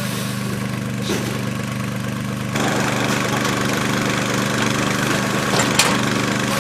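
Small engine driving the sheep dip's pump runs steadily. About two and a half seconds in, a hiss of the dip spray from the nozzles joins it, and two sharp knocks sound near the end.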